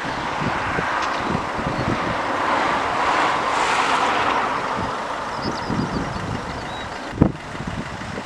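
Jet airliner passing, its engine roar swelling to a peak about three and a half seconds in and then fading. Wind buffets the microphone throughout, and there is a sharp knock near the end.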